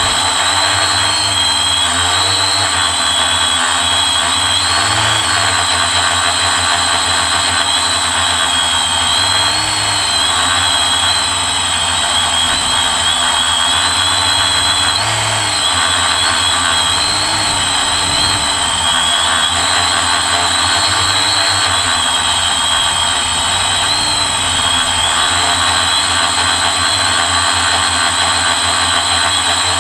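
Quadcopter's electric motors and propellers running, heard close from the drone's own onboard camera: a loud, constant whine over a rushing noise, its pitches wavering up and down together every few seconds as the motors change speed to hold the drone in the air.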